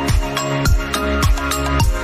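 Background electronic music with a steady kick-drum beat, a stroke a little more than every half second, over held synth tones.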